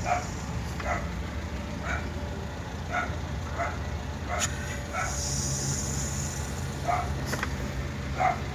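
A dog barking repeatedly, short separate barks roughly once a second, over a steady low hum.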